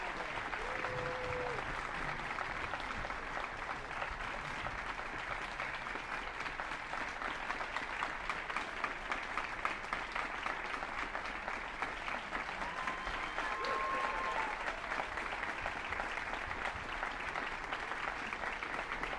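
Audience applauding steadily. Two brief calls from the crowd ring out over it: a lower one about a second in and a higher one about two-thirds of the way through.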